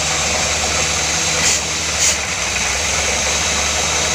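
Borewell drilling rig running steadily while it drills, its machinery giving a constant low hum and noise, with two brief hissing bursts about one and a half and two seconds in.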